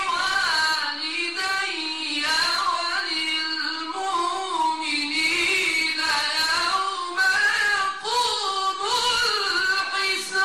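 A man reciting the Quran in the melodic mujawwad (tajwid) style through a microphone: long, high, held notes that glide and turn in ornaments, in phrases separated by brief pauses.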